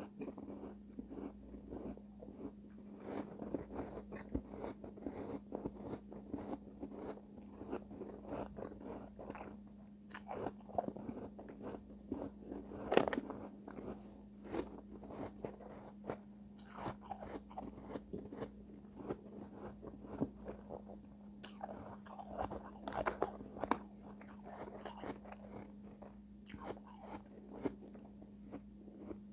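Close-miked chewing of refrozen shave ice: many small crisp crunches throughout, with one louder crunch about halfway through. A steady low hum runs underneath.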